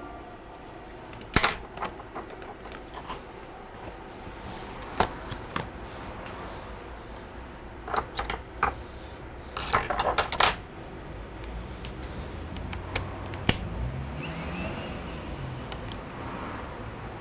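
Scattered clicks, taps and clatter of a Dell XPS 13 9350 laptop being handled with its bottom cover off, with a quick run of rattling clicks about ten seconds in. Near the end a faint low drone wavers in pitch.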